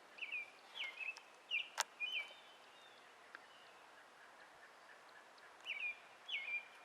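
A bird calling repeatedly: short chirps that drop in pitch and then hold briefly, a run of about five early on and another run of three near the end. A single sharp click about two seconds in.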